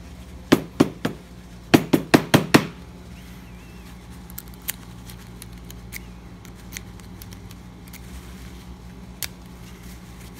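Sharp clicks from a rust-cleaned American padlock being handled: three clicks, then a quick run of five about two seconds in, and a few faint single clicks later. A steady low hum sits underneath.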